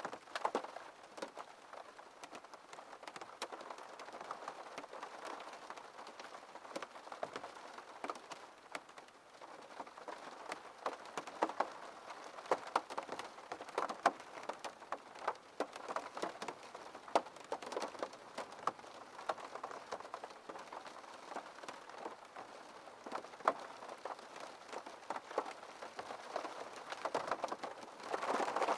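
Rain falling on a window: a steady hiss with many separate drops ticking against the glass, swelling briefly heavier near the end.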